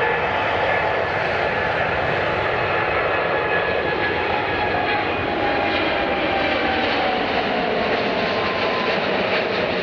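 Airliner's engines running loud and steady, with whining tones that slowly fall in pitch.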